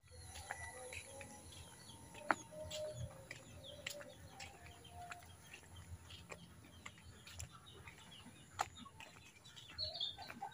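Faint outdoor farmyard ambience: domestic fowl clucking and small birds chirping now and then, with a few light clicks.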